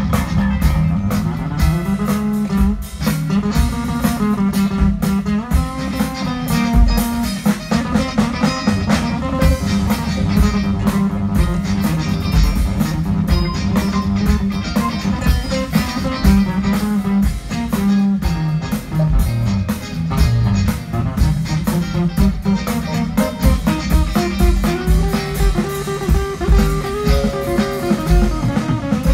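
Live band playing amplified through PA speakers: electric guitar over bass and drum kit, with a steady beat.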